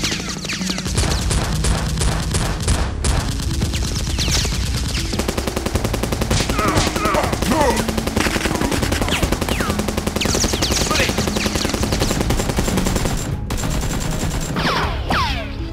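Rapid automatic gunfire sound effects in long bursts, with falling whistling ricochet sounds among the shots. These are realistic firearm effects dubbed over a toy blaster fight, not the blasters' own noise.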